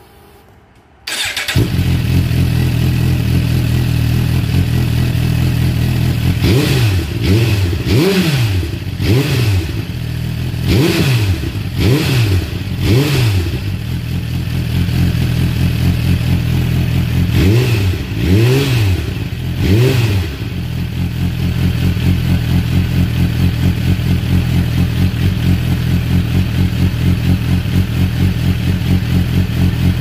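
Suzuki GSX-R1000 inline-four running through a Yoshimura carbon slip-on muffler. It starts about a second in and idles, then takes a string of about six quick throttle blips, a short idle, three more blips, and settles back to a steady idle.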